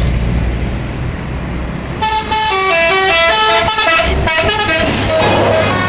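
A bus's telolet basuri musical horn plays a quick tune of short stepped notes. It starts about two seconds in over the low running bus engine, with a brief break near the middle.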